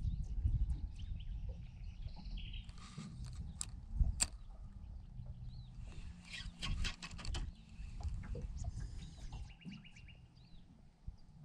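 Birds chirping and trilling in short repeated calls, over a steady low rumble, with a single sharp knock about four seconds in.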